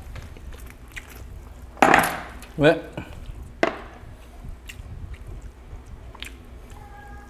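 Hands tearing a whole roast chicken apart, with two loud tearing bursts about two and three and a half seconds in. Between them comes a short, low vocal grunt.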